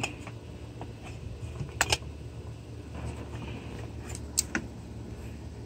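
Oil filter pliers clicking against a spin-on oil filter as it is turned snug: a few sharp metallic clicks, the loudest about two seconds in and a small cluster near the end, over a steady low hum.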